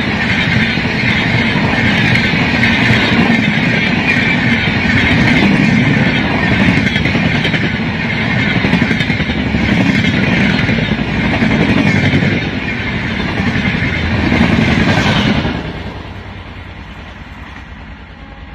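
Coaches of a long passenger train running past at speed close by: a loud, steady rush of steel wheels on rail. The noise drops off sharply about three-quarters of the way through as the last coach goes by, leaving a fainter rumble.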